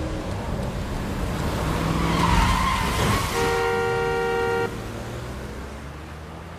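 A car rushing close with a swelling whoosh and a brief tyre squeal, then a car horn sounding steadily for just over a second before cutting off abruptly.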